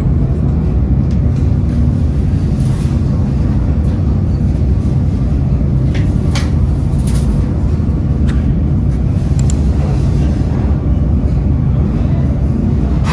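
Heavy factory machinery running with a steady low rumble, with a few sharp metallic clinks scattered through it.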